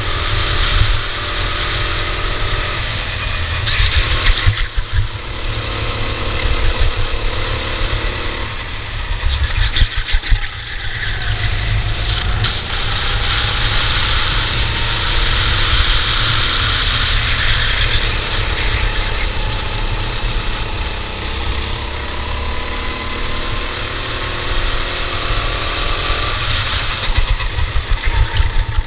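Cadet kart engine running at speed, its pitch rising and falling repeatedly as it accelerates and eases off, with wind rumbling on the microphone.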